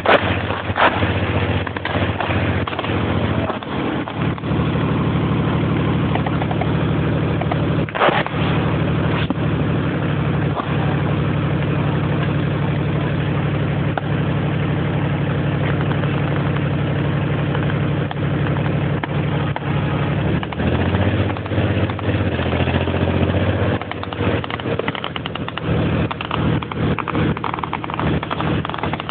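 Military armoured vehicle's engine running steadily on the move, heard from on board; its pitch shifts about two-thirds of the way through. A sharp bang about eight seconds in and a run of knocks near the end.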